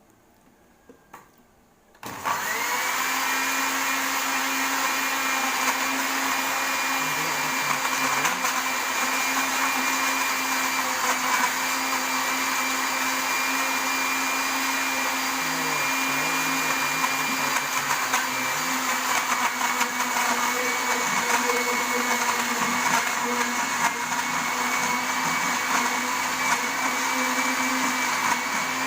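An electric kitchen blender is switched on about two seconds in, after a couple of small clicks, and runs steadily at one speed with a constant whine. It is pureeing ginger and limes with water.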